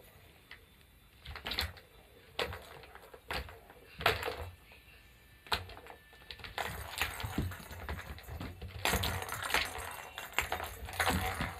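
A series of irregular sharp knocks and taps, busier and mixed with noise in the second half.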